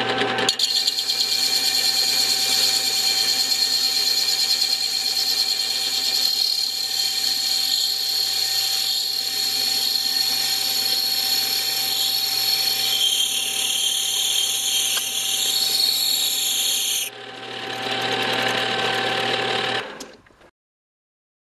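Small benchtop lathe-mill-drill running with a single-point tool taking a light finishing (spring) pass across a cast-iron motorcycle brake drum, oiled with a little cutting oil: a steady motor hum under a bright, high cutting sound. About 17 s in the high cutting sound drops away, and near the end the machine cuts off suddenly.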